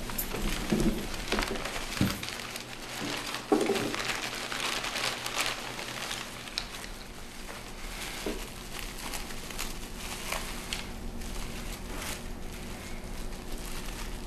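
Paper lunch bag rustling and crinkling as it is handled and opened, with scattered small knocks, busiest in the first half, over a steady low hum.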